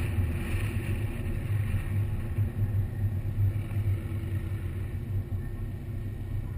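2003 SVT Cobra's supercharged 4.6-litre V8 running at low revs with a steady low rumble as the car rolls slowly off the course after its run.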